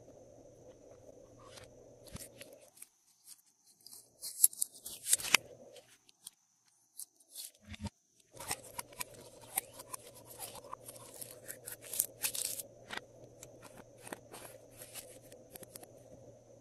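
Glossy slime being peeled out of a silicone mould and handled, giving quick sticky crackles and clicks in two bursts, about four seconds in and again from about nine seconds, with a brief lull between.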